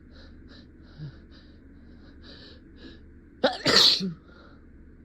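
A person sneezing once, about three and a half seconds in. A sharp first catch is followed by the loud main blast, and faint quick breaths and sniffs come before it. The sneeze breaks through an attempt to hold it back.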